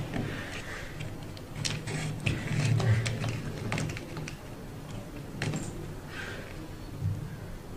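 Wires and plastic-and-metal robot frame parts being handled: a run of light clicks and small knocks in the middle, another click a little later, over a low hum.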